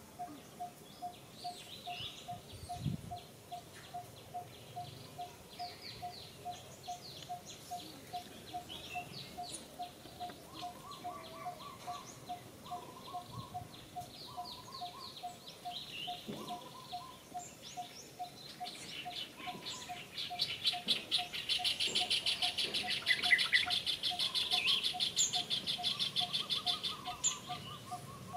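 Outdoor birdsong: scattered high chirps over a single note repeated evenly about twice a second. A louder, very fast rattling trill comes in about two-thirds of the way through and runs almost to the end.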